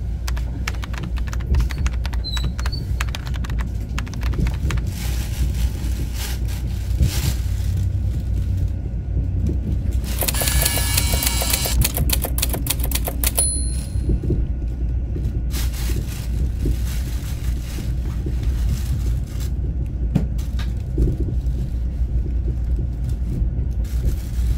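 Train noise: a steady low rumble with rapid clicking and clatter, and a louder rushing hiss for a few seconds near the middle.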